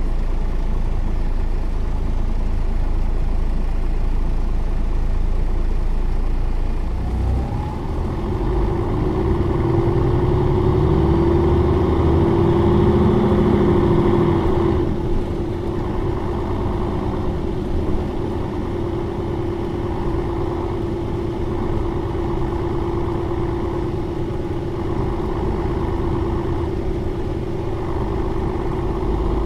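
Mercedes-Benz O405N2 city bus engine and drivetrain running. About seven seconds in it pulls harder, with a whine that holds until about fifteen seconds in, then it eases to a quieter, steadier run with the whine still there.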